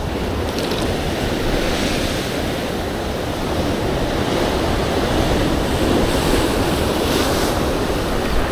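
Ocean surf washing steadily against the rocks, with some wind on the microphone.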